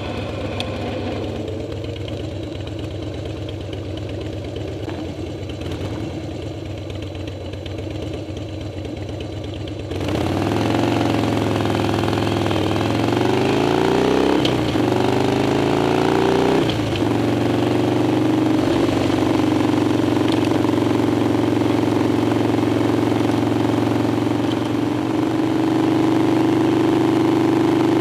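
Harley-Davidson Dyna's V-twin engine idling at a stop for about ten seconds, then pulling away under acceleration, its pitch rising and dropping back through two upshifts, before settling into a steady cruise.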